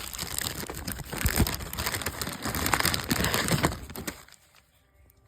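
Plastic packaging crinkling and rustling as it is handled, with a few sharper crackles; it stops about four seconds in.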